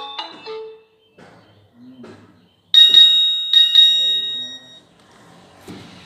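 Nokia 3310 ringtones: a quick run of marimba-like notes ends and fades within the first second. About three seconds in, a bright bell-like chime sounds twice as a quick pair of strikes, the pairs under a second apart, and rings out.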